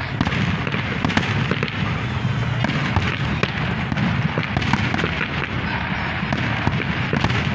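Aerial fireworks shells bursting in a dense, unbroken barrage: a continuous low din with many sharp pops and crackles overlapping throughout.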